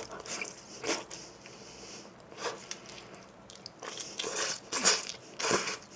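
Close-miked biting and chewing of cheese pizza: short, separate mouth sounds about a second and two and a half seconds in, then a denser run of them in the last two seconds.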